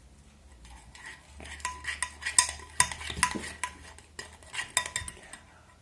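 A utensil stirring thick, sticky slime mixture in a bowl, with irregular scrapes and clicks against the bowl.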